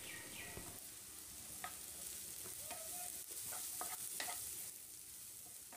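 Chopped onions, garlic, ginger and green chillies frying quietly in oil in a non-stick pan, a steady soft sizzle, while a spatula stirs them with a few light scrapes and taps against the pan.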